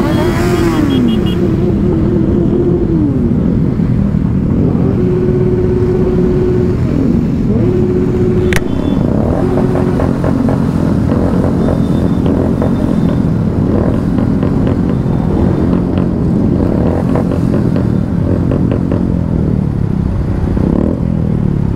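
Many motorcycle engines idling and revving together in a packed group of riders. A horn sounds several times around the middle, the longest for about two seconds.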